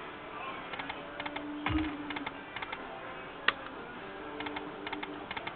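Lightning Link slot machine play: short clusters of rapid clicking ticks and brief electronic tones, with one sharper click about three and a half seconds in, over casino background noise.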